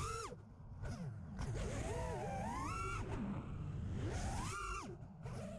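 FPV freestyle quadcopter's motors and propellers whining, the pitch swooping sharply up and down several times as the throttle is punched and chopped through flips and rolls, over a low rumble.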